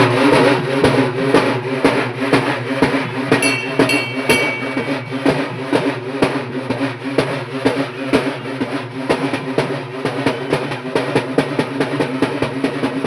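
Festival drums playing fast, dense beats, with a brief high-pitched tone about four seconds in.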